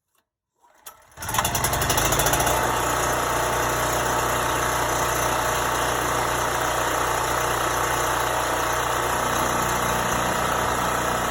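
Champion portable generator's engine starting about a second in, running a little harder for a moment, then settling into a steady run.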